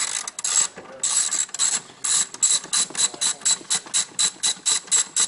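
Hand ratchet on socket extensions clicking in quick back-and-forth strokes, about four to five a second, as it unthreads a loosened 16 mm rear shock mounting bolt.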